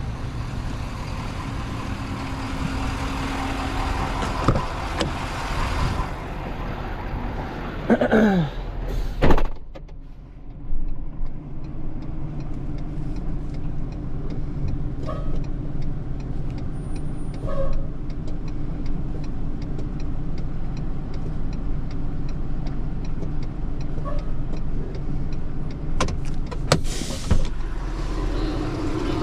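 A truck engine runs steadily while the truck is being positioned. About eight seconds in there is a falling whine, followed by a sharp clunk.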